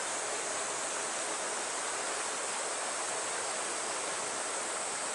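Steady, even hiss of water flowing through a rocky stream channel, with a chorus of cicadas singing.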